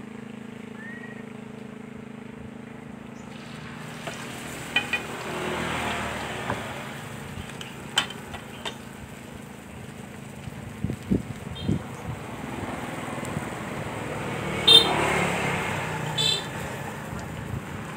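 Banana fritters deep-frying in a large pot of hot oil: a steady sizzling hiss that swells from about four seconds in. Scattered sharp clinks run through it, the loudest near the end, over a low hum that fades early on.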